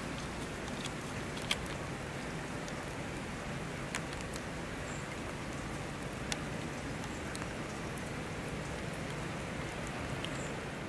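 Steady rain falling on wet tarmac, with a few sharp drip ticks about a second and a half, four and six seconds in.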